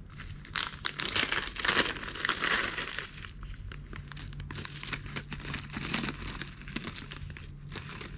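Thin plastic zip-lock bag crinkling as it is opened, then small acrylic game tokens clicking together as they are tipped into a hand and shifted about. The crinkling is dense for the first few seconds, and the clicks come scattered after that.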